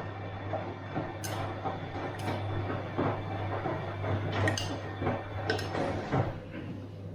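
Bosch washing machine running with a steady low hum, the drum tumbling with irregular clinks and knocks.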